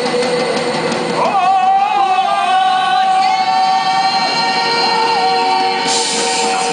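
Live experimental music with a long, held, voice-like note over a steady drone. About a second in the note slides up to a higher pitch and is held there, wavering slightly.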